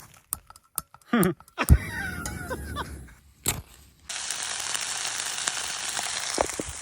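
Clicks and knocks of camp cooking gear, then from about four seconds in a steady hiss of cooking on a camp stove.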